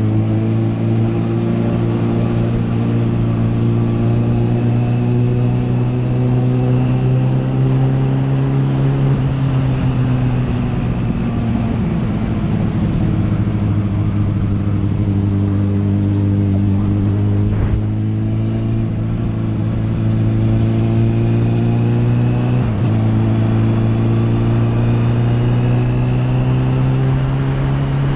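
Motorcycle engine running while riding at steady road speed, with rushing air over the microphone. About ten seconds in, the engine note falls away and goes rough for a few seconds, then picks up again and holds steady, with a brief dip near the end.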